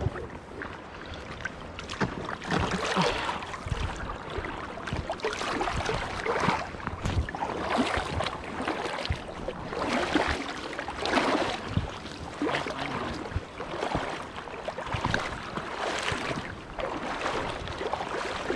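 River water sloshing and splashing in uneven bursts, as from wading through the water while a hooked trout is played.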